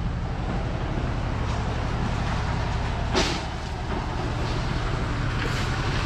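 An engine runs steadily at a constant speed, a low even drone, with a brief scraping hiss about three seconds in.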